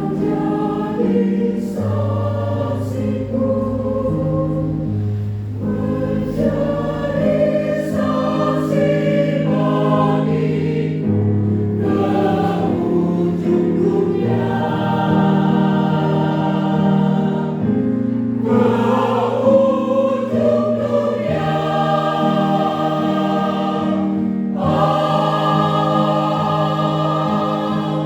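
Choir singing a Christian song in harmony, with long held chords that change every second or two.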